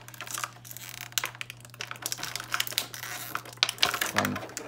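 Clear plastic packaging crinkling and crackling irregularly as hands handle a blister tray and the plastic wrap around small toy accessories.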